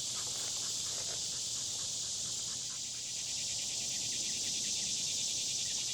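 Steady high-pitched drone of insects outdoors, with a fast, evenly pulsed chirping running through the first half.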